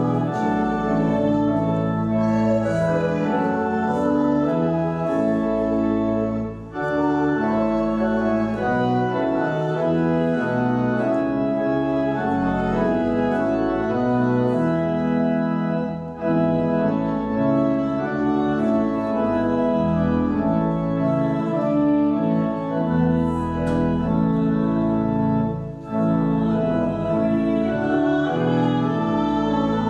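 Church organ playing a processional hymn in full, held chords that change about once a second, with short breaks between phrases roughly every ten seconds.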